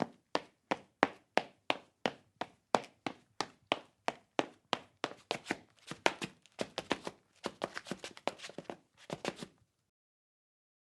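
Running footsteps on a hard epoxy floor: sharp, even strikes about three a second, turning quicker and less even about halfway through, then stopping about nine and a half seconds in.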